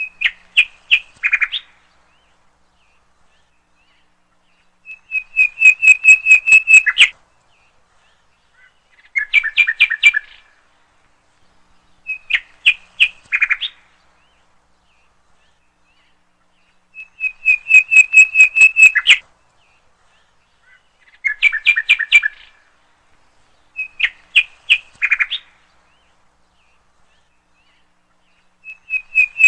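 A bird chirping in short phrases of rapid high notes, one phrase every three to four seconds, with the same sequence of phrases coming round again.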